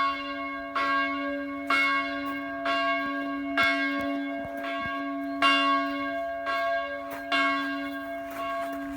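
Church bell ringing, struck about once a second. Each stroke rings on into the next over a steady low hum.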